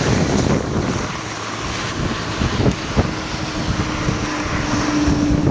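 Strong wind buffeting the microphone: a loud, steady rushing noise. A faint steady tone joins about halfway through.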